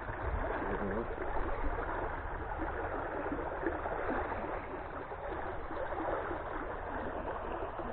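Stream water flowing steadily over and around a submerged pipe, a continuous even wash of moving water.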